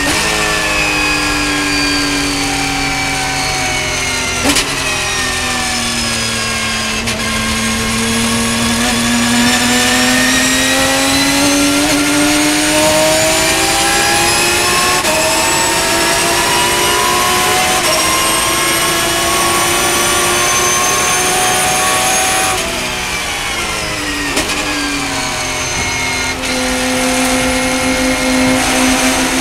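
Porsche race car engine heard from inside the cockpit at racing speed. Its pitch falls over the first few seconds as the car brakes and gears down, with a brief sharp crack about four seconds in, then climbs steadily under full throttle. It drops sharply at an upshift a little after twenty seconds and climbs again.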